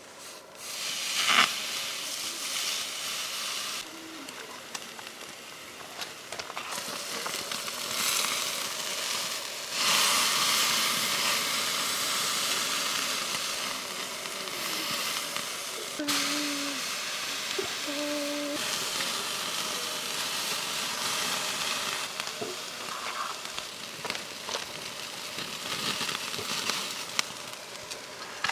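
Steady sizzling hiss from cooking over a mesquite charcoal fire, swelling and easing in loudness, with a sharp knock about a second in.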